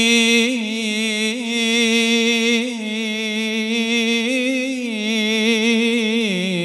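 A solo male voice chanting an unaccompanied Arabic ibtihal, holding long melismatic notes with wavering ornaments. The pitch drops near the end as the phrase closes.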